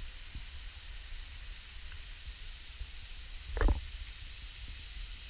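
Wind rumbling on the camera microphone over a faint, steady hiss of falling water from a tall waterfall. One brief, louder bump comes about three and a half seconds in.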